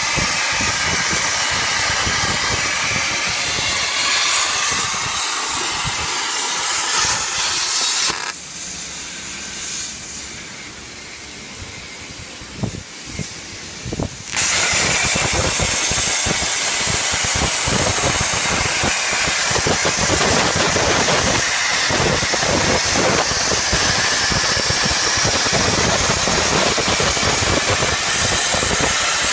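Plasma torch of a portable CNC cutting machine cutting steel plate: a loud, steady hiss that stops about eight seconds in. A quieter lull with a few clicks follows, then the hiss starts again about six seconds later as the arc restarts.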